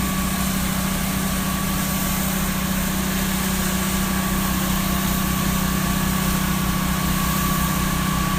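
Engine-driven pump of a pressure-washing rig running steadily at constant speed, with a fast even low throb, while it pumps sodium hypochlorite (bleach) solution onto the concrete.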